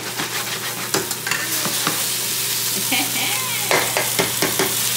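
Rice frying and sizzling in a hot pan while it is stirred, a utensil clacking and scraping against the pan a few times, with a quick run of clacks near the end.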